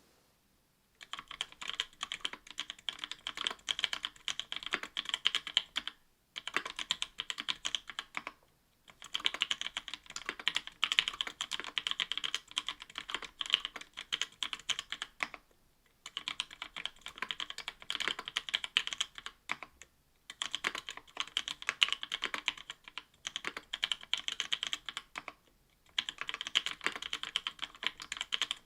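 Typing on a mechanical keyboard with lubed NovelKeys Cream linear switches (Krytox 205g0) in an aluminium plate, under GMK keycaps: quick keystroke clacks in runs of several seconds, with brief pauses between runs.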